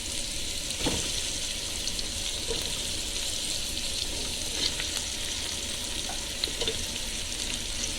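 Boiled pigeons and onions sizzling as they fry in fat in a cooking pot. A steady hiss runs throughout, with a few light knocks scattered through it.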